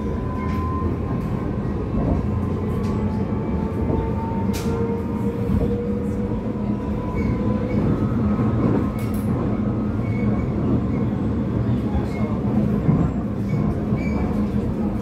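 Amsterdam metro train heard from inside the carriage while running: a steady low rumble with a faint, slowly shifting motor whine and a few scattered clicks.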